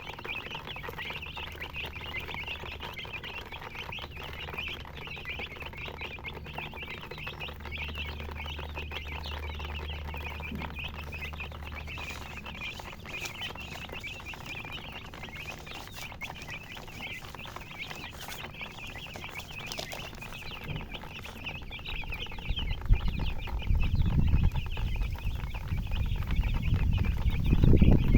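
A flock of baby chicks peeping continuously, many short high chirps overlapping. Low rumbling thumps grow louder in the last several seconds.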